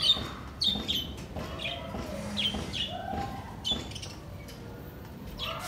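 Small birds chirping: short high chirps repeated every half second or so, with a couple of sharp knocks at the very start and about half a second in.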